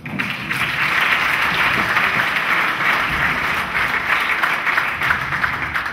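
Audience applauding at the close of a talk, breaking out suddenly and keeping up a steady clatter of many hands.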